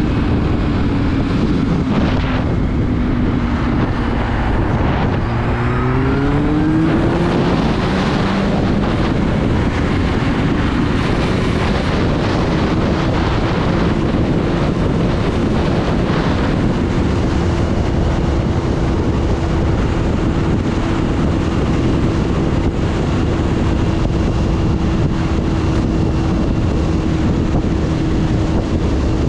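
Sport motorcycle engine running at highway speed under heavy wind noise on the microphone. The engine note sinks over the first few seconds, climbs sharply about six seconds in as the revs rise, then holds steady.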